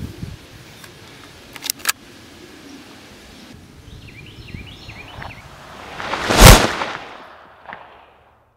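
A film gunshot sound effect: one loud blast about six and a half seconds in that swells up over about a second before it and dies away after. Two sharp clicks come near two seconds in, and birds chirp faintly over the outdoor background before the sound cuts to silence near the end.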